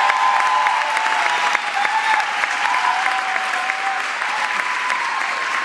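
Concert audience applauding, the clapping dense and steady, with a thin held high tone that bends slightly running over it.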